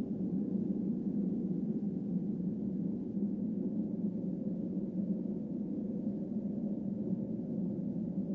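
Low, steady drone with no breaks or sudden sounds.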